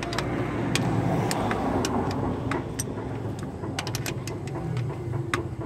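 Ratchet wrench clicking in quick irregular runs as it turns a connecting rod cap fastener onto the crankshaft, over a steady low rumble.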